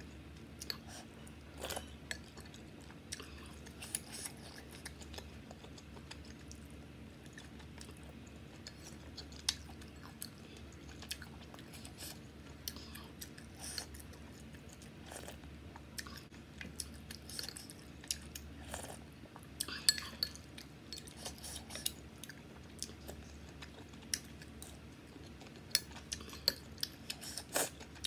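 Close-miked eating sounds: chewing and wet mouth noises from spoonfuls of bathup, a Bhutanese noodle soup. An occasional sharp clink of a metal spoon against a ceramic bowl comes in, with a louder run of clicks near the end.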